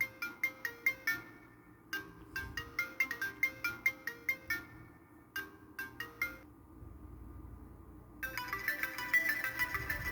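iPhone 6s ringtones playing through the phone's speaker: short phrases of quick, bright notes with pauses between them, then a different, busier and denser tone starting about eight seconds in.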